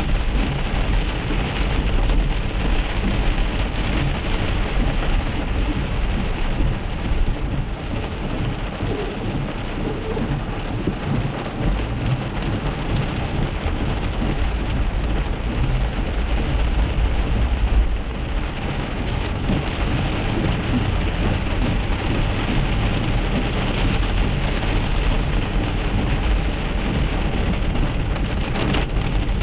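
Rain and hail pelting the car's roof and windshield, heard from inside the moving car as a dense, steady hiss over the low rumble of the car on the wet road.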